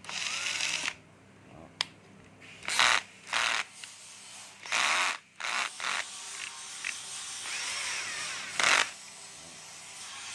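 Cordless drill-driver with an electric brake, triggered in about five short bursts. Each burst spins up and stops sharply, with a few handling clicks between runs.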